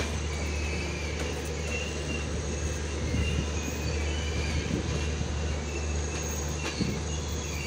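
Avadh Assam Express passenger train running along the track, heard from its window: a steady low rumble and rush of wheels on rail, with faint, wavering high wheel squeals and an occasional click.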